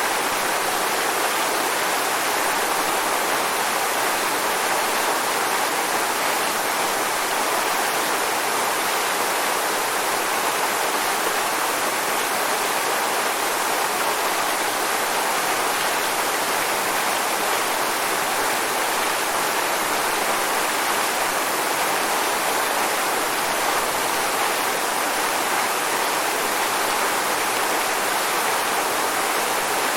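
Waterfall: a steady, unbroken rush of falling water, with no music.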